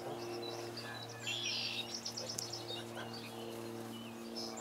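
Small birds chirping, with a quick trill of repeated high notes about two seconds in, over a steady low hum.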